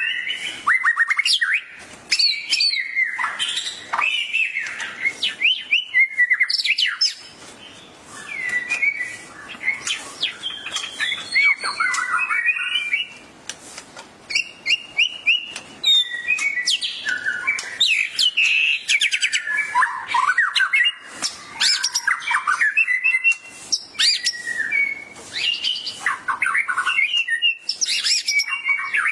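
White-rumped shama (murai batu) singing loudly in long, varied phrases of whistles and fast chattering trills, with short pauses between bursts. This is the full, excited song that keepers call gacor.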